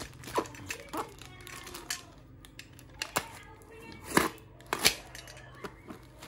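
A snap-off utility knife cutting through packing tape and cardboard on a plastic-wrapped parcel, with plastic crinkling and a few sharp clicks and scrapes. The loudest cut comes about four seconds in.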